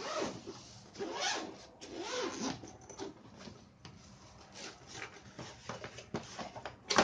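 Zipper of a fabric carry bag pulled open in three long rasping strokes, then softer rustling of plastic bubble wrap as the bag is opened, with one sharp knock near the end.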